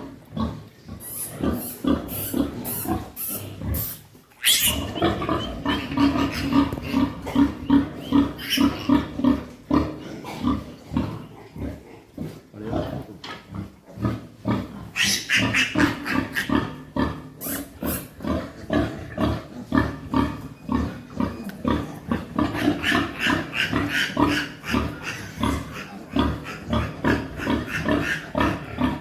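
Pigs grunting in quick, steady succession, with sharper high-pitched cries near the start and again about halfway through.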